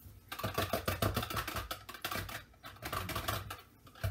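Metal utensil stirring and scraping thick soap batter in a plastic cup: a rapid run of clicks and knocks against the cup, with a brief lull about two and a half seconds in and another near the end.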